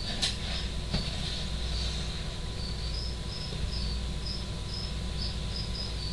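A cricket chirping, short high chirps repeating about twice a second, over a steady low hum. There is one brief tap just after the start.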